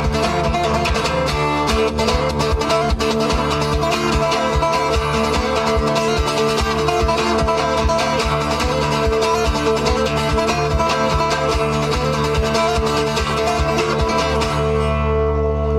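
Acoustic guitar strummed fast with percussive hits over a steady didgeridoo drone. The guitar stops about fourteen seconds in, leaving the didgeridoo droning alone.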